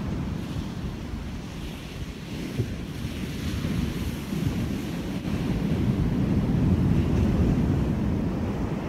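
Wind buffeting the microphone over the wash of surf breaking on the shore, a steady rumble with a hiss on top that swells about two-thirds of the way through.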